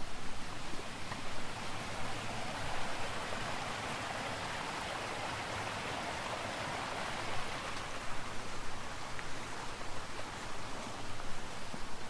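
A small meadow stream flowing with a steady rushing hiss that swells for several seconds in the middle and then fades.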